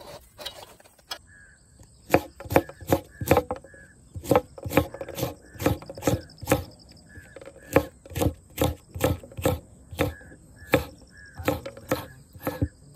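Large kitchen knife chopping green chillies on a wooden board: sharp, uneven knocks of the blade on the wood, about two to three a second, starting about two seconds in.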